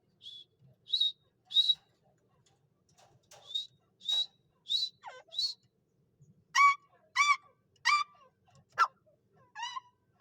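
Grey francolin calling: a run of short, high, squeaky notes, then from about six seconds in a series of louder ringing notes repeated at an even pace, roughly one every half second or so.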